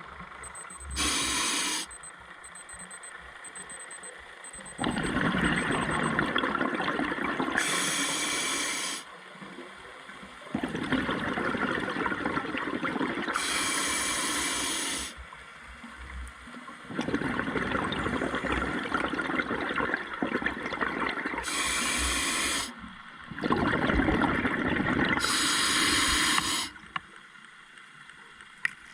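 Scuba diver breathing through a regulator underwater: short hissing inhalations alternating with longer bubbling exhalations, in a slow regular cycle of about five breaths.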